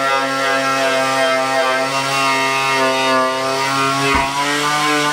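Angle grinder with a paint-stripping disc running under load against a steel car door, a steady motor whine over the scrape of paint being ground off to bare metal, with a single knock about four seconds in.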